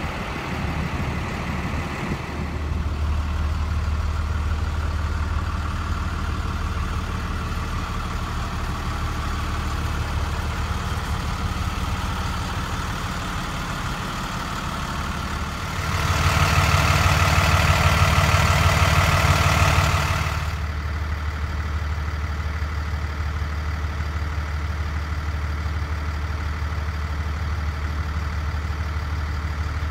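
2008 Peterbilt 335's 6.7-litre diesel engine idling steadily. About halfway through, it grows louder and brighter for about four seconds, then settles back to the steady idle.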